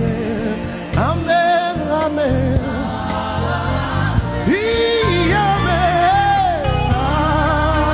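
Live gospel worship music: long sung notes with vibrato and sliding pitch over a choir and a keyboard-led band accompaniment.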